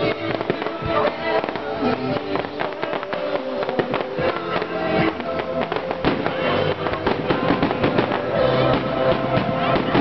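Fireworks going off in a rapid, dense run of pops and bangs, with music playing alongside.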